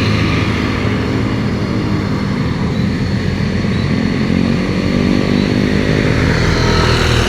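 Road traffic passing close by: a steady, loud mix of engine noise from motorcycles and other vehicles.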